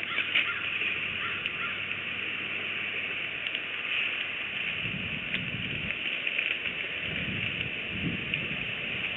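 A bald eagle lands on its stick nest with a couple of sharp wingbeats, then the pair shift sticks in the nest, making irregular low rustling. A steady high outdoor hiss runs underneath.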